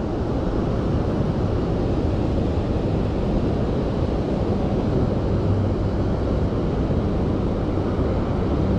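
Steady rushing noise of a fast river current running over rocks below a dam.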